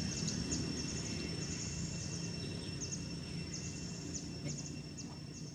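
Outdoor ambience: a steady high insect drone, with many short, quick, high chirps of small birds over a low background rumble.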